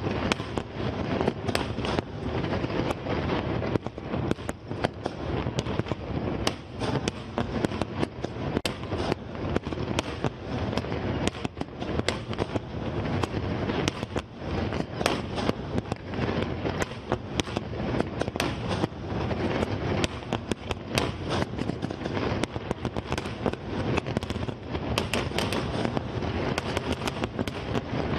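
Aerial firework shells bursting in a dense barrage: many sharp bangs in quick succession over a continuous rumble, with no let-up.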